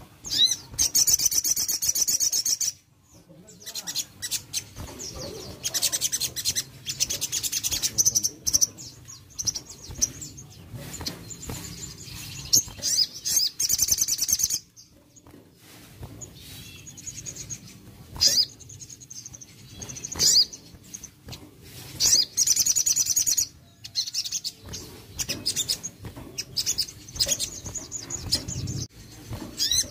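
Sunbird (sogon) singing: high, fast chirping trills in phrases of one to three seconds, repeated with short pauses between them.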